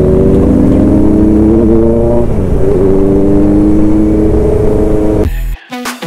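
Motorcycle engine running under way at highway speed, its pitch dipping briefly a little over two seconds in and then recovering. Near the end it cuts off abruptly and electronic music comes in.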